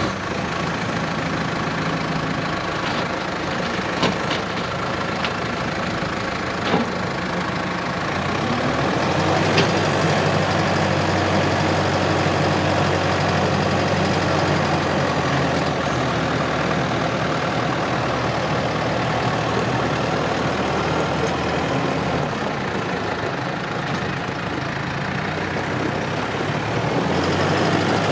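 2016 New Holland T4.65's four-cylinder turbocharged diesel engine running as the tractor is driven, with a few short clicks in the first ten seconds. About eight seconds in the engine note deepens and gets a little louder, easing again around 22 seconds and rising once more near the end.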